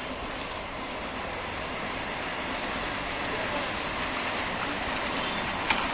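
Steady hiss of rain falling, growing slightly louder, with one sharp click near the end.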